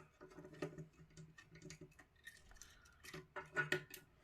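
Small plastic clicks and taps from an opened PS5 DualSense controller as its internal parts are handled and lifted out, with a cluster of louder clicks near the end.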